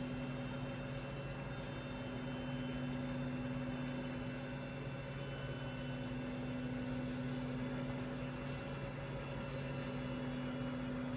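Steady electrical hum with an even hiss underneath, unchanging throughout.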